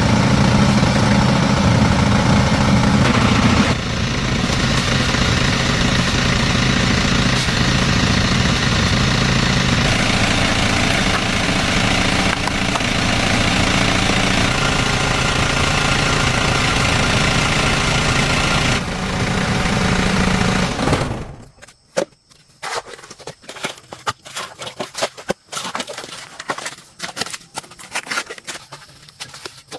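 An engine running steadily, cutting off abruptly about two-thirds of the way through. After that come scattered sharp clicks and knocks.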